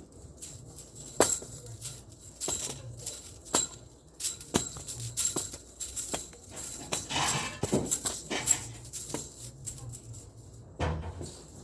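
Irregular clicking and jingling rattles, like small bells or a tambourine being shaken, coming at uneven intervals.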